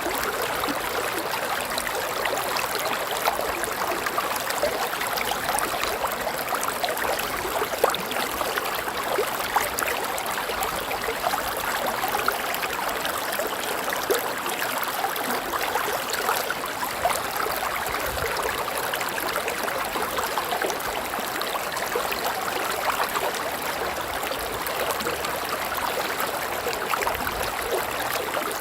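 River water flowing steadily over rocks, a continuous rushing babble with small splashes and gurgles.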